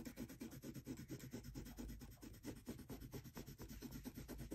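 Black colored pencil scratching on paper in rapid back-and-forth shading strokes, roughly eight a second, as dark tone is built up over the drawing.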